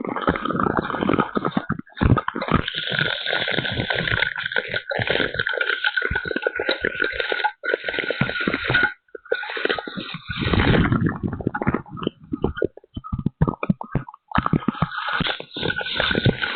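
Heavy rain and hail coming down hard, a dense hiss that keeps cutting out for brief moments. A low rumble joins in about ten seconds in and again near the end.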